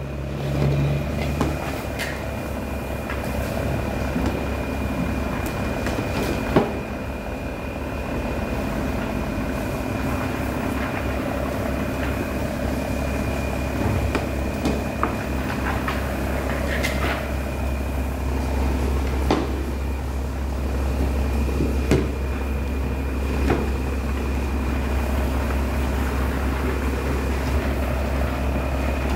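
An engine running steadily with a low rumble and a steady whine, with a few sharp knocks now and then.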